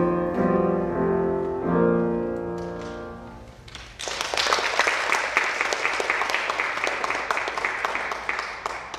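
Final chords of a piece played on a Steinway grand piano, the last chord ringing and dying away. About four seconds in, an audience breaks into applause.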